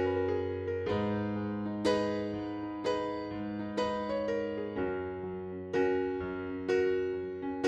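Background music: electric piano chords struck about once a second, each fading away, over held bass notes.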